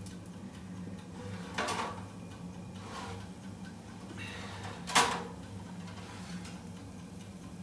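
Oven door opened and a metal oven tray pulled out on its rack: a scrape about one and a half seconds in and a sharper clank about five seconds in, over a steady low hum.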